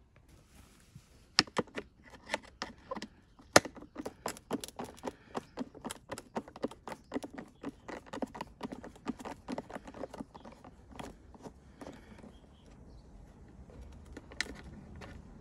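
Screwdriver turning out small Torx screws from a Kärcher pressure washer's plastic casing: a long run of quick, irregular clicks, a few a second, that stops about 12 seconds in. One more sharp click comes near the end.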